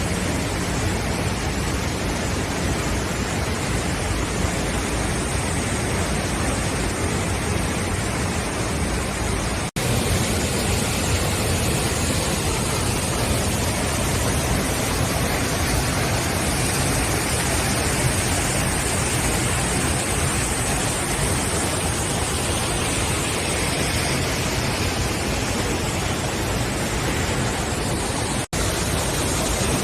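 Steady, loud rush of water from a waterfall, cutting out for an instant twice, about ten seconds in and near the end.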